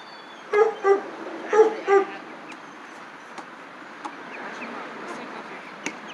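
A small dog giving four short, high yips in two quick pairs, then falling quiet.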